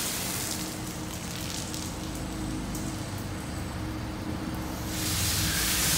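Automatic car wash: the hiss of chemical spray on the car stops about a second in, leaving a low mechanical rumble from the wash equipment, and the spray hiss starts up again about five seconds in.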